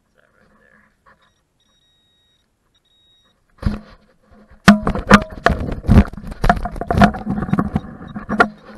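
Close handling noise of a digging tool and metal detector in grass: after about three quiet seconds a thump, then from about five seconds in a run of loud, irregular knocks and rustling with a low steady hum underneath.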